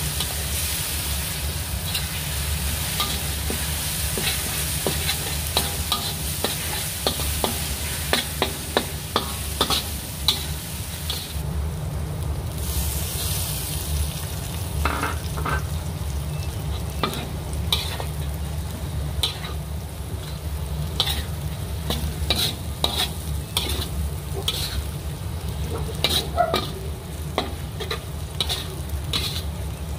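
Food sizzling as it fries in a pan while a spatula stirs it, scraping and clicking against the pan many times, with a steady low hum underneath.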